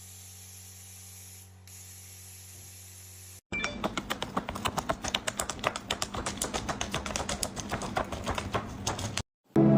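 A steady hiss with a low hum, then, after a sudden cut about three and a half seconds in, a fast, irregular run of sharp clicks and taps, several a second, that stops abruptly near the end.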